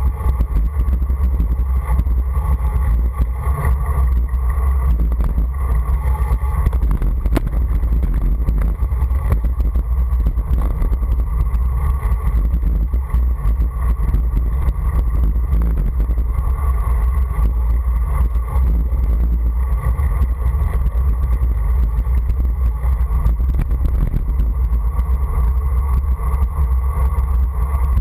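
Steady wind rushing over the microphone, mixed with tyre rumble on asphalt, from a fast descent down a paved road.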